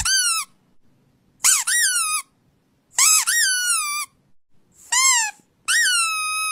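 Pug puppy howling: five high, thin howls with short pauses between, each rising and then falling in pitch, the last one drawn out longest.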